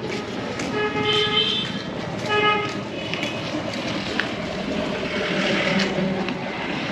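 A vehicle horn tooting twice, a longer toot about a second in and a short one about two and a half seconds in, over the hum of road traffic.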